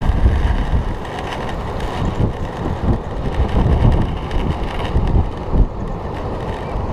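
Wind buffeting the microphone in irregular gusts, a loud low rumble that swells and eases every second or so.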